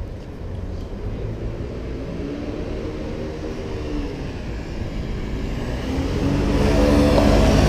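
Motor vehicle engine running under a low road rumble, its pitch rising and the sound growing louder over the last couple of seconds as it speeds up.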